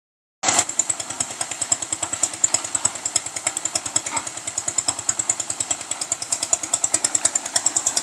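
Small single-cylinder diesel engine driving a concrete mixer, running steadily with a fast, even chugging of about a dozen beats a second.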